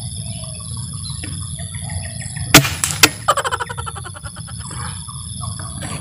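A single rifle shot about two and a half seconds in, followed half a second later by a second sharp crack, then a rapid string of sharp pulses for about a second. Birds chirp throughout.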